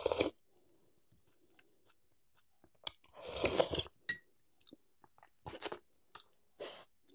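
A person eating close to the microphone: mouth sounds of crunching and chewing. There is one loud crunching bite about three seconds in, then several shorter crunches with quiet gaps between them.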